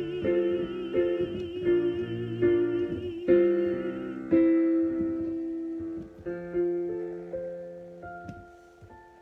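Instrumental ending of a theme song: keyboard chords with a wavering high melody line above them. The notes then thin out and fade away toward the end.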